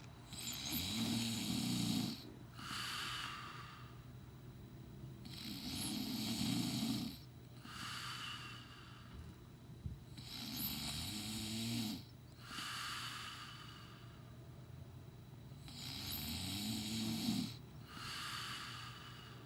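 A man snoring in his sleep: four snores about five seconds apart, each followed by a shorter, softer breath.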